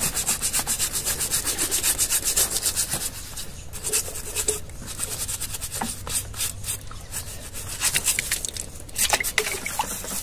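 A stiff hand brush scrubbing a bull's wet hoof clean in fast back-and-forth strokes, about six a second. About three seconds in the strokes stop, and slower, quieter rubbing and a few light knocks follow.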